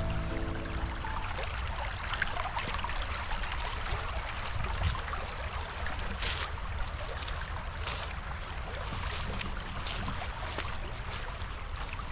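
Background music ends about a second in. After that comes steady outdoor noise: a low rumble and an even rushing hiss, with a few short crackles.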